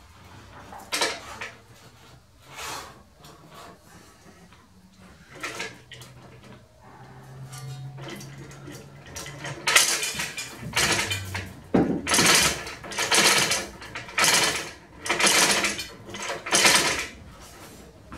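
Steel hand chain of a small 250 kg chain block clinking and rattling as it is hauled, at first a few light metallic clicks, then from about halfway a run of loud clattering pulls about one a second. The chain block is being used to ease a heavy load down onto a lathe bed for fine positioning.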